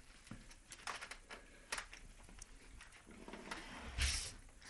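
Scattered light clicks and rustles of movement, with a louder rustle and low thump about four seconds in.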